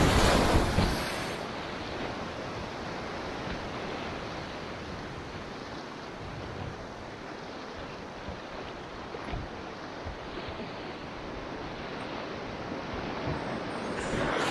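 River water rushing around a whitewater kayak, with a louder surge of splashing in the first second or so, then a steady rush of water.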